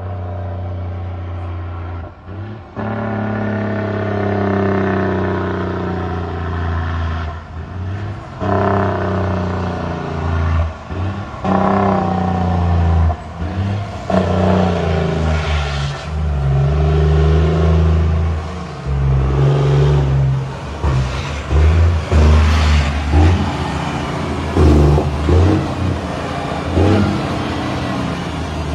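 Straight-piped 550 hp Volvo truck's inline-six diesel running loud as the truck accelerates toward and past, its note climbing in pitch, cutting off briefly and climbing again many times over.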